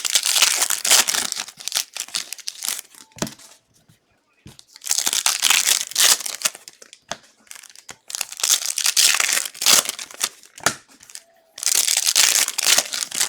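Plastic wrapping of NFL trading card packs being torn open and crinkled by hand, in four bursts of loud crackling with short pauses between them.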